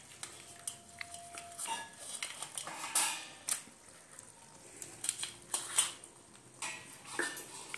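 Crabs being handled on steel plates: scattered light clinks and knocks of shells and hands against the metal plates, with a few sharper clanks of the plates themselves.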